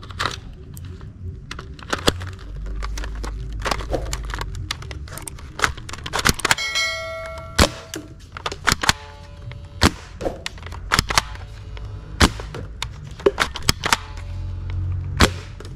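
A black toy AK-47 blaster firing a run of sharp shots at uneven spacing, with hits clacking on targets. About seven seconds in, a ringing ding sounds.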